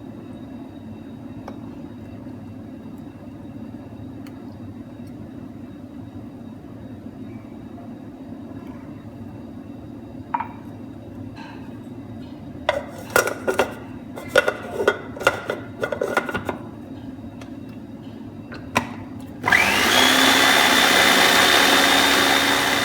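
A low steady hum, then a quick run of clicks and knocks, then a countertop blender switches on loud and runs steadily, with a constant whine, blending peaches with coconut milk and orange juice. It starts to wind down near the end.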